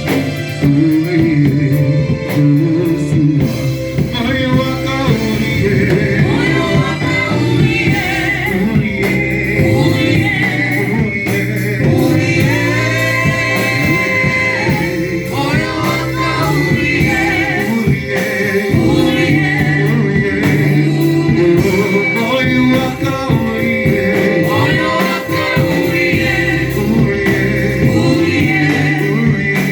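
Gospel music: voices singing over steady instrumental backing.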